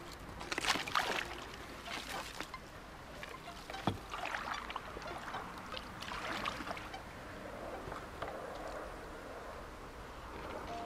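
Kayak paddle strokes: the blade dips and splashes in the water about every two seconds, with a trickle of drips between strokes. There is one sharp knock about four seconds in.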